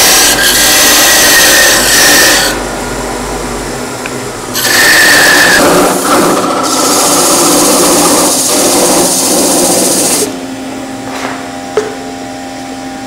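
A parting tool cutting into a wooden vase spinning on a Vicmarc wood lathe, parting it off at the base. The loud hissing cut comes in two spells; the second stops about ten seconds in, leaving the lathe motor running with a steady hum and a single click near the end.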